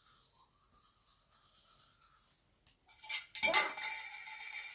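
A small hard object drops and clatters on a wooden floor about three seconds in, then rings and rattles for about a second and a half.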